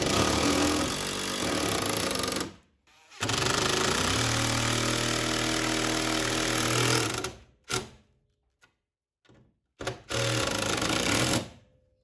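Cordless impact driver running lag bolts through a steel mounting bracket into the wall, in three runs: one of about two and a half seconds, one of about four seconds, and a shorter one of about a second and a half near the end.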